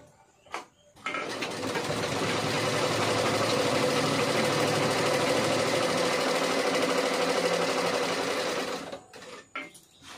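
Sewing machine stitching at a steady speed, starting about a second in after a short click and stopping about a second before the end.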